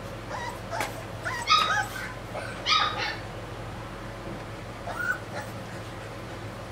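Rottweiler puppy whimpering and yelping in short high-pitched cries, the two loudest about a second and a half and three seconds in, with a last one near five seconds.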